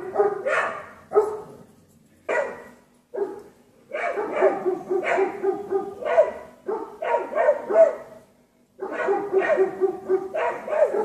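Dogs barking at a cougar to drive it off: single barks at first, then fast volleys of barking with a short pause in between.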